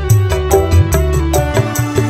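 Dangdut band music: an instrumental passage with a driving drum beat of about three strikes a second over bass and held melody notes, with no singing.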